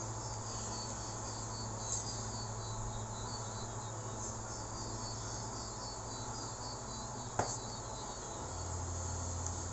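Insects chirring steadily in a high pitch over a low steady hum, with one sharp click about seven seconds in.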